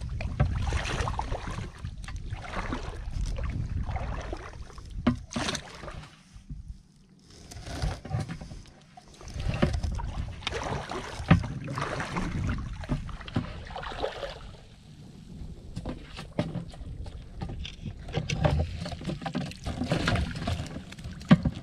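Shallow water sloshing and splashing in uneven swells as a person wades and sweeps a pair of long-handled scoop nets through it, with a sharp knock now and then.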